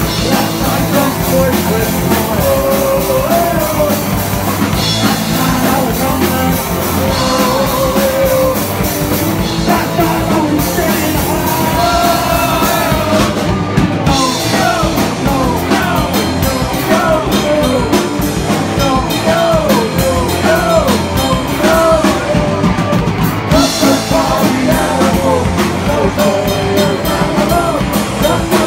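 Punk rock band playing live: electric guitars, bass guitar and a drum kit, with sung vocals.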